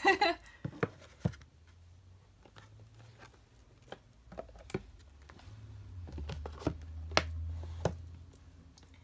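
Hands handling a paperback book and a card box on a wooden tabletop: scattered light taps and knocks, with a low hum underneath from about two seconds in until near the end.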